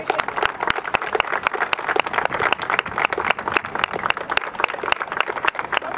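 A small crowd clapping by hand. The separate sharp claps of individuals are heard within the applause.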